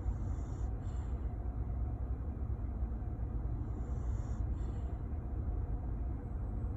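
Soft snoring breaths: a hissing breath about every three and a half seconds, each followed by a short second hiss, over a steady low rumble.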